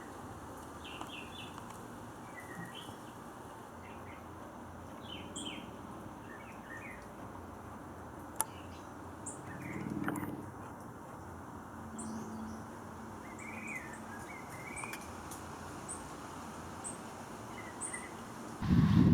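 Small birds chirping in short scattered notes over a steady outdoor hiss, with a sudden burst of wind on the microphone just before the end.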